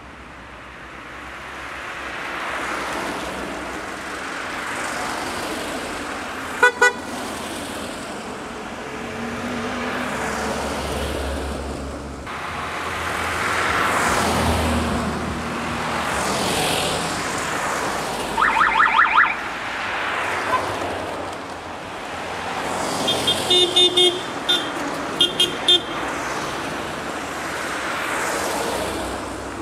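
A convoy of classic cars, among them a Lada and Trabants, driving past one after another, each one a rise and fall of engine and tyre noise. Horns toot along the way: a short beep about a quarter of the way in, a quick run of beeps past halfway, and several more short beeps near the end.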